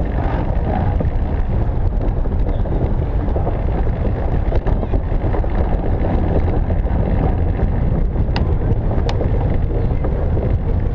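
Velomobile riding over city pavement: a steady low rumble of the tyres and shell against the road surface. Two short sharp clicks come near the end.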